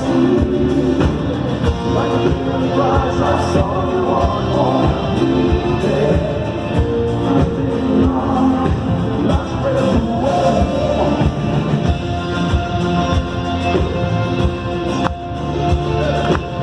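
Rock band playing live in a large hall at a sound check: full band with drums and sustained keyboard and guitar chords, and singing over the music in the middle stretch.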